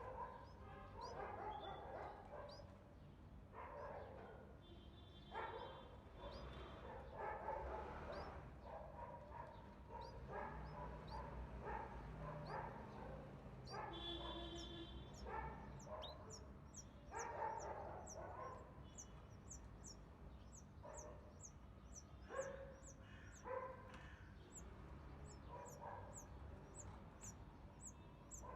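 Canary nestlings begging for food: faint, thin, high chirps that settle into a rapid, even series, about three a second, through the second half. Louder, lower, whimpering-like calls come and go throughout.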